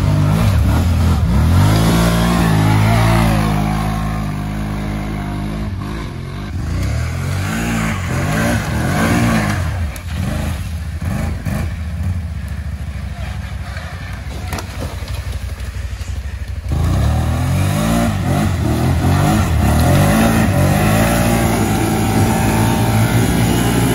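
ATV engines revving hard and easing off in repeated surges of throttle. The sound drops back somewhat in the middle, then jumps suddenly louder about two-thirds of the way in.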